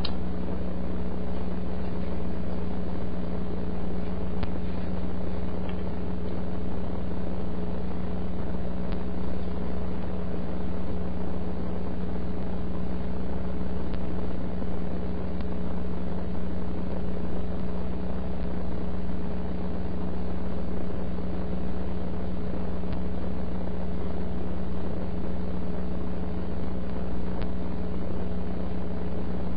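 Steady radio static with a low, constant hum from a two-meter AM ham radio receiver on an open channel with no station talking.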